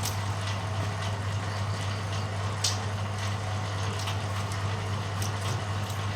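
Bamboo strip-thinning machine running with a steady low hum, with scattered sharp ticks and clicks, the loudest about two and a half seconds in.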